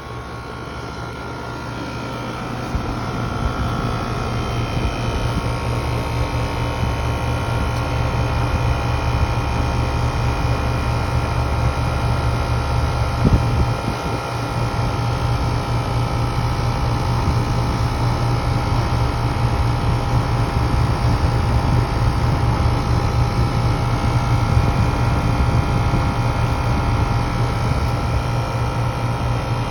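Outdoor air-conditioner condenser unit running with a steady mechanical hum and whir. One brief knock about halfway through.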